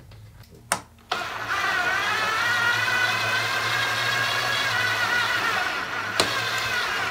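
Cordless drill-driver running steadily for about six seconds, driving an Allen-head bolt into an aluminium panel frame and load bar. A couple of clicks come just before the motor starts.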